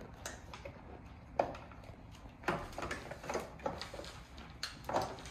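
Scattered light clicks and knocks of plastic toy pieces being handled, about five in all.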